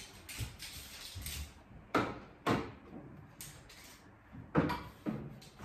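Metal spoons set down one by one beside the plates on a laid table, making a few sharp clinks in two close pairs.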